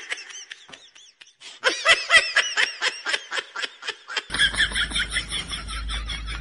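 High-pitched giggling laughter in quick repeated notes, about five a second, starting about a second and a half in. A low hum joins it for the last two seconds.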